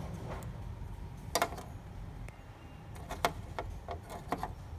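A few light clicks and knocks from a small DC scanner motor with a worm-gear shaft being handled and set down on a printer's plastic surface, the sharpest about a second and a half in and a cluster near the end, over a steady low hum.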